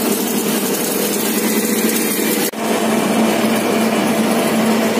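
Mini dal mill running: a steady mechanical hum with a wide hiss from its motors and moving grain. The sound drops out for an instant about halfway through, then carries on the same.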